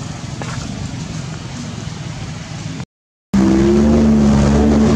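A motor engine running with a steady low hum. The sound cuts out for about half a second nearly three seconds in, then comes back much louder as a steady engine drone.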